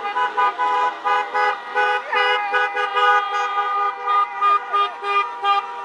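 Several car horns honking at once in a celebration convoy. Some give quick repeated toots, two or three a second, over others held longer at different pitches.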